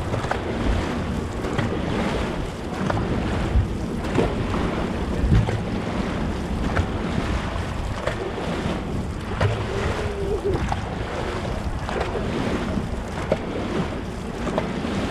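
Wind buffeting the microphone over rushing, splashing water from a dragon boat on the water, with scattered short knocks and splashes.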